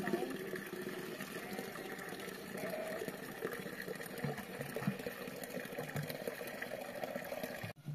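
Spring water running and splashing steadily from the outlet of a stone water channel.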